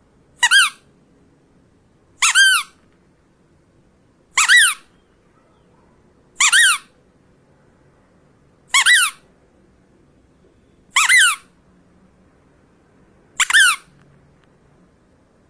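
Rubber duck squeaked seven times, about one squeeze every two seconds. Each squeak is short and high, rising then falling in pitch, with a quick click at its start.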